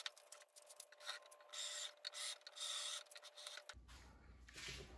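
Cordless drill drilling out the rivets of an aluminum window sash frame, running in several short bursts over a faint steady whine and stopping a little before the end.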